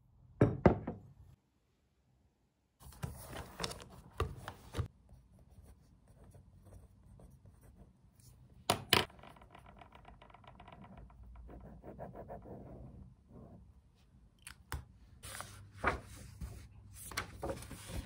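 Paper and desk handling: workbook and book pages rustling and being flipped, with several sharp taps and knocks on the table. The loudest knocks come about half a second in and about nine seconds in.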